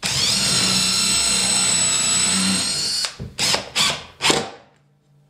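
Cordless drill with a countersink bit boring into plywood: the motor runs at a steady high whine for about three seconds, then gives three short bursts before stopping.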